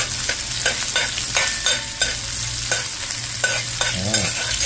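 A metal spoon scrapes and knocks against a wide steel pan in a quick, even rhythm of about three strokes a second. It is stirring sliced onion and pimento peppers frying in sizzling oil.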